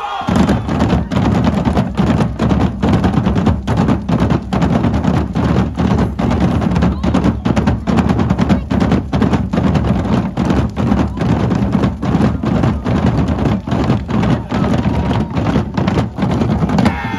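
A group of drums beating a steady, fast pulse of loud strikes, over a continuous low rumble.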